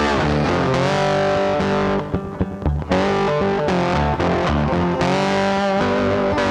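Background music led by a distorted electric guitar, with a short break in the sound about two seconds in.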